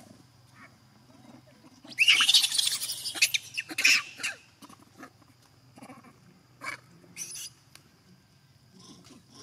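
A young macaque screaming: a shrill, loud scream about two seconds in that lasts about two seconds, followed by a few short squeaks a little later.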